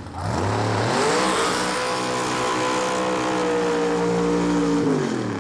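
Pro Mod drag car's engine revving up and held at high revs through a burnout, over the hiss of spinning tyres, then dropping off near the end.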